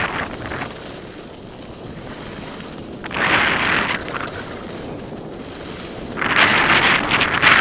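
Skis sliding downhill on packed snow, with wind rushing steadily over the microphone. Twice the skis scrape in hissing turns on the snow, about three seconds in and again about six seconds in, the second one longer.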